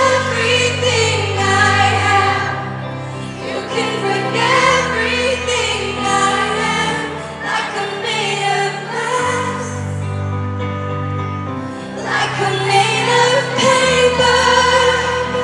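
Live pop concert music: a singer's voice over a band with long held bass notes.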